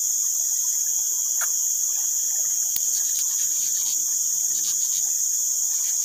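Steady, high-pitched drone of a forest insect chorus, with a few small clicks over it.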